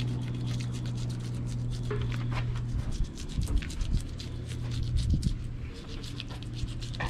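Knife slicing along the back of a whole, scaled striped bass, the blade crackling through scales and skin in many small scratchy clicks, over a steady low hum.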